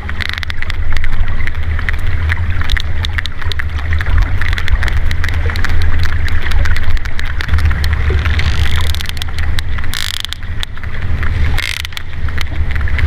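Sperm whale clicks: rapid, irregular trains of sharp clicks over a steady low rumble, with a few brief hissing swells in the second half.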